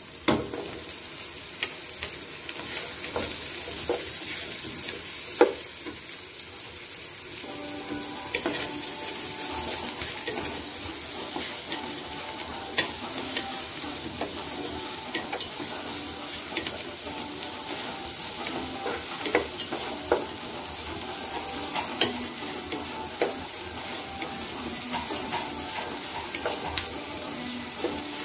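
Sliced onions sizzling in hot oil in a non-stick pot, stirred with a wooden spatula that knocks against the pan now and then.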